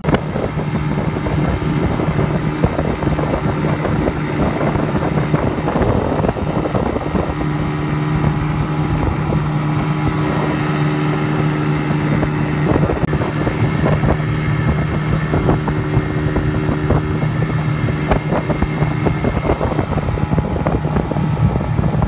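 Motorboat engine running steadily under way, a constant low hum over the rush of wind and water.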